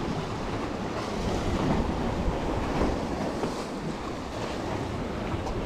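Sea waves washing against concrete breakwater blocks, with wind noise on the microphone.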